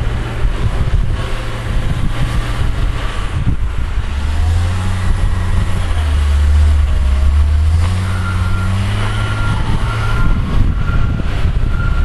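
Wheel loader's diesel engine running, its revs rising for a few seconds in the middle, and from about two-thirds of the way in its reversing alarm beeps steadily, about one and a half beeps a second.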